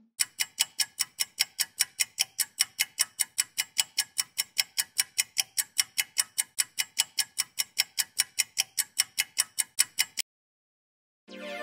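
Even, clock-like ticking, about four ticks a second, that stops abruptly about ten seconds in. A short falling tone follows near the end.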